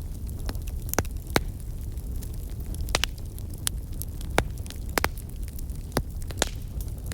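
Wood campfire crackling, with sharp pops every half second to a second over a steady low wind rumble.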